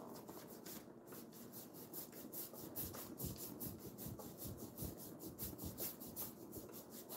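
Paintbrush scrubbing wet chalk paint onto a wooden dresser drawer in quick, even back-and-forth strokes, about five a second: a faint, rhythmic scratchy swishing.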